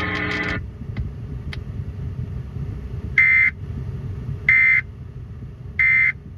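Emergency Alert System end-of-message data code over FM radio: three short, buzzy digital bursts about 1.3 seconds apart, marking the end of the alert. A held tone cuts off about half a second in, and a low hiss runs beneath.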